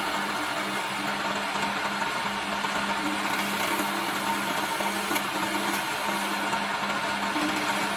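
Wood lathe's electric motor running steadily while a hand-held chisel cuts the spinning wooden spindle. The result is a continuous rough scraping hiss over a steady motor hum.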